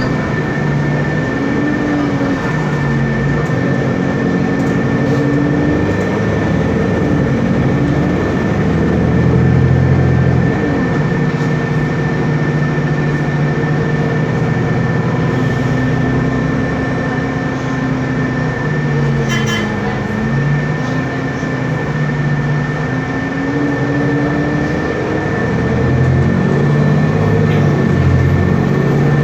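Otokar Kent LF city bus's Cummins ISB Euro 6 diesel engine running under way, its pitch rising and falling again and again as the bus speeds up and slows. A steady high whine sits over the engine, and a brief burst of clicking comes about two-thirds of the way through.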